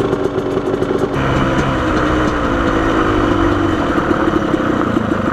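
Off-road motorcycle engine running at a steady low speed, with a rougher layer of noise joining about a second in.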